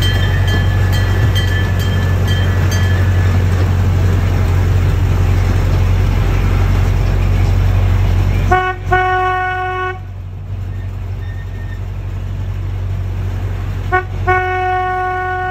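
Amusement-park miniature train rumbling steadily along its track. About eight and a half seconds in, its horn sounds one steady blast for over a second. Near the end it gives a short toot followed by a longer blast.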